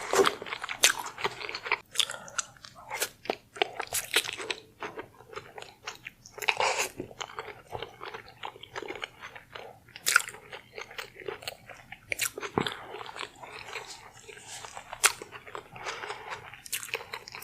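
Close-miked eating: a person biting into and chewing crunchy food, with sharp crunches at irregular intervals throughout.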